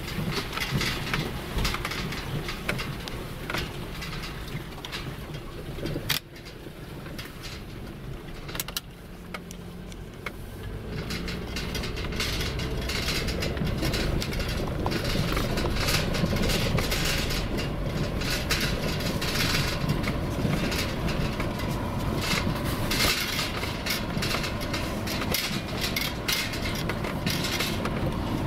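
Car driving over a rough dirt track, heard from inside the cabin: steady engine and tyre noise with frequent small rattles and knocks. It grows louder about twelve seconds in.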